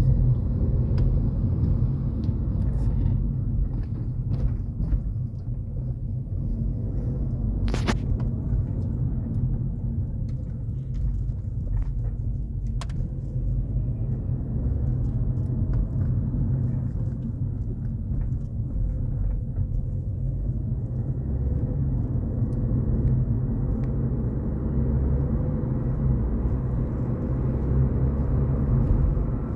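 Car driving with a steady low rumble, broken by a few sharp clicks and cracks, the loudest about eight seconds in: the squeak-crackle from the right side of the front suspension.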